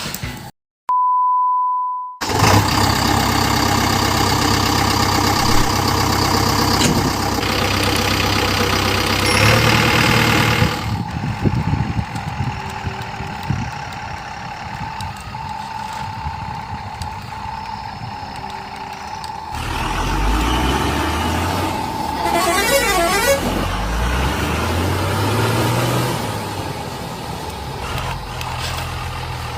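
Truck engine and horn sounds from the RC trucks, the engine pitch rising and falling in the later part, with a short steady beep about a second in.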